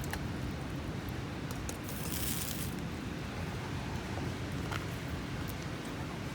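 Steady low rumble of wind outdoors, with scattered faint crackles from a wood campfire and a brief hiss about two seconds in.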